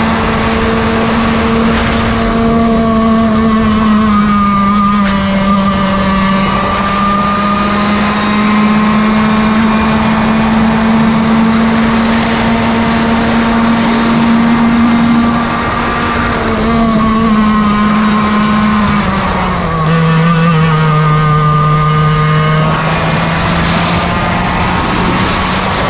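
Yamaha KT100 two-stroke kart engine running hard at high revs in a race. Its pitch dips twice in the second half and climbs back near the end.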